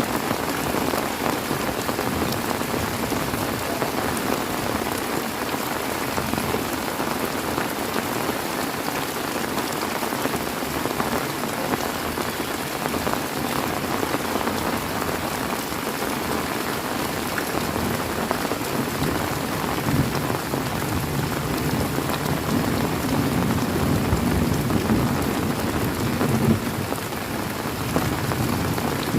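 Heavy rain falling steadily, a dense hiss of drops. A low rumble of thunder swells in about two-thirds of the way through and fades before the end.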